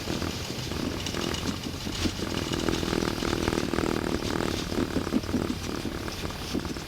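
Cockpit noise of an Airbus A320 rolling out on the runway after landing: a steady engine and airflow noise with small irregular knocks and rattles.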